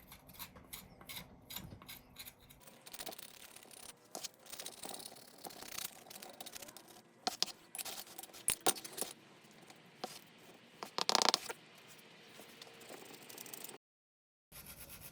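Scraper working paint-stripper-softened paint off metal vise parts: irregular scrapes mixed with metal clicks and rattles. The sound drops out completely for a moment near the end.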